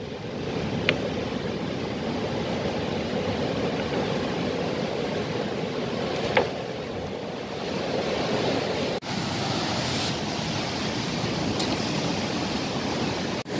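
Surf breaking on a rocky shore: a steady rush of waves, with a few short sharp clicks over it.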